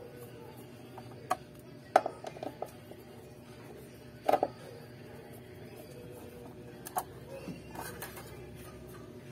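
A screwdriver backing screws out of an electric guitar's rear tremolo cover plate: scattered sharp clicks and small metallic knocks of screws and driver, the loudest about two seconds in and a double one about four seconds in. Near the end the plastic cover plate is lifted off the body.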